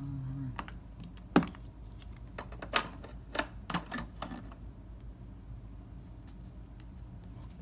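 Handling noise of toys and packaging on a wooden floor: a few sharp clicks and taps. The loudest comes about a second and a half in, and a cluster follows between about three and four seconds, with fainter ticks after.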